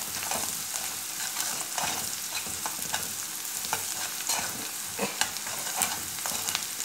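Chopped onions sizzling in hot oil in an aluminium kadhai, salted and browning, while a spatula stirs them, scraping and knocking against the pan at irregular moments.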